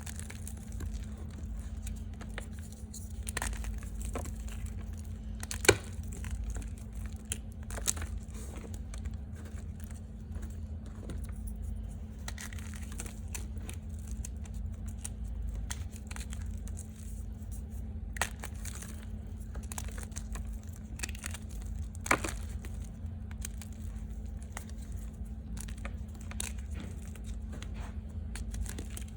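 Reformed gym chalk being crunched close to the microphone: an irregular run of small crackles with a few sharp, loud cracks, the loudest about six seconds in and again near eighteen and twenty-two seconds. A steady low hum runs underneath.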